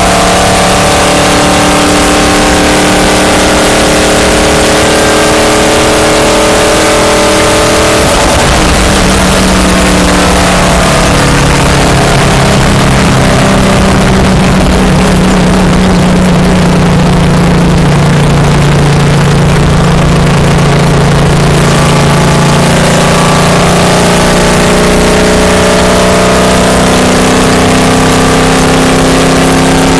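Stock car's V8 engine running hard at speed around an oval, heard loud from the in-car camera. Its note drops about a third of the way in, then climbs slowly over the last several seconds as the car accelerates onto the straight.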